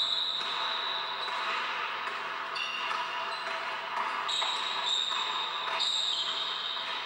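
A basketball being dribbled on an indoor hardwood court, with high, drawn-out squeaks coming and going several times.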